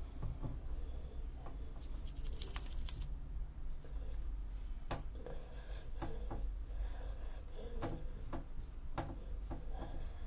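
Hands rubbing and scrunching wet hair, giving irregular soft rustles and small clicks over a steady low hum.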